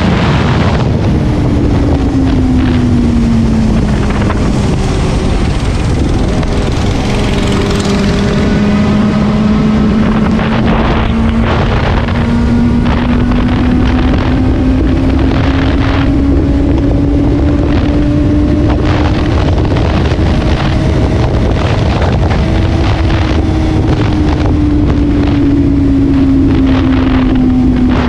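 Benelli 600i's inline-four engine pulling under way, heard through heavy wind buffeting on the camera mic. Its note falls a few seconds in, then climbs slowly and steadily for a long stretch as the bike gathers speed, and eases down again near the end.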